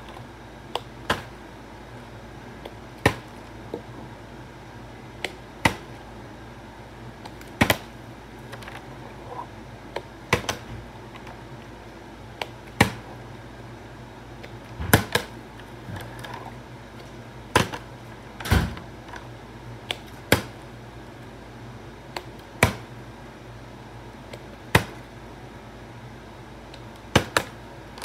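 A partly filled plastic water bottle being flipped and hitting the floor again and again, a sharp knock or thud about every second or two, some heavier than others.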